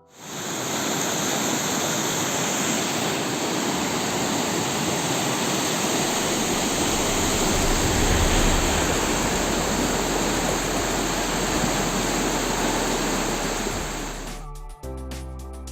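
Steady rushing of flowing water, a stream or small cascade, cutting in suddenly at the start and giving way to music near the end.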